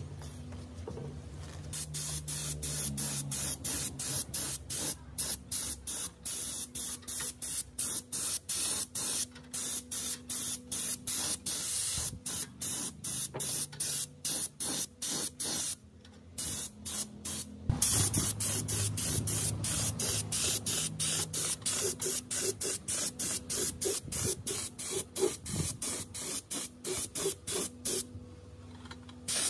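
Compressed-air paint spray gun with a suction-feed cup, hissing in quick short bursts about three times a second as the trigger is pulsed. The bursts pause for a couple of seconds just past the middle and again near the end.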